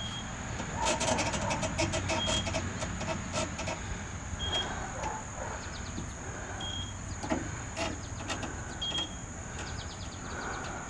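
Scattered clicks and light rattles of hands working at the opened unit, with a short high electronic beep about every two seconds over a steady high-pitched tone and a low hum.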